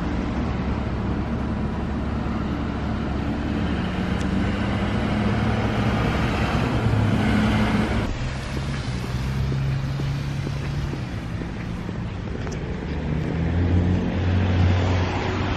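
Street traffic on a rainy day: car engines running and tyre noise on a wet road, a steady wash of sound that changes abruptly about eight seconds in.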